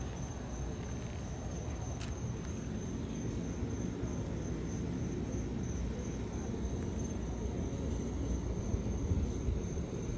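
Crickets trilling steadily in one high, thin tone over a low, steady rumble, with a single click about two seconds in.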